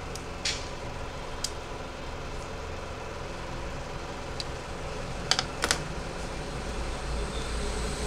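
A few light, sharp clicks and taps of a mobile phone's plastic and metal parts being handled and separated. The loudest are two close clicks about two-thirds of the way in, all over a steady low rumble in the background.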